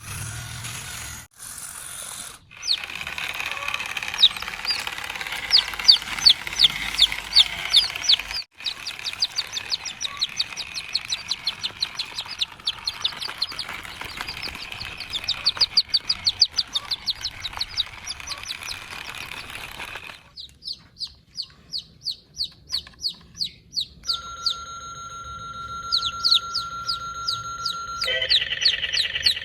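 Rapid, repeated high bird-like chirps, several a second, over a steady hiss. Near the end, steady electronic tones join in, then a fast beeping pattern.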